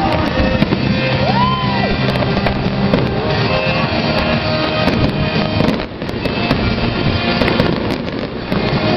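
Aerial fireworks shells bursting and crackling in quick succession, with music playing underneath.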